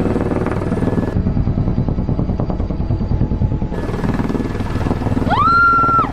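Helicopter engine and rotor running with a fast, steady chop. Near the end a brief high tone rises, holds for about half a second and falls away, louder than the helicopter.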